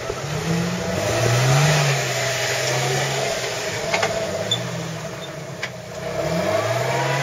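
Jeep Wrangler TJ engine revving up and down as the Jeep crawls through deep mud ruts, its pitch rising and falling several times. It is loudest about a second and a half in.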